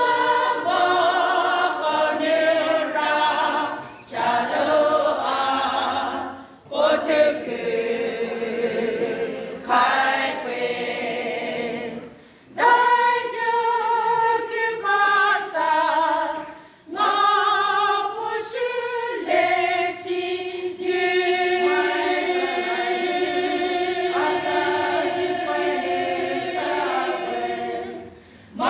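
Women's choir singing a hymn a cappella, in phrases broken by short pauses for breath. From about twenty seconds in, the voices hold long, steady notes.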